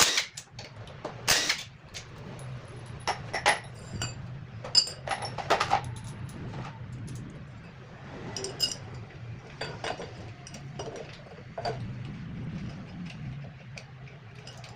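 Metal hand tools and engine parts clinking and knocking while a Yamaha Mio Sporty scooter engine is taken apart: irregular sharp clinks, some ringing briefly, thicker in the first six seconds, over a low steady hum.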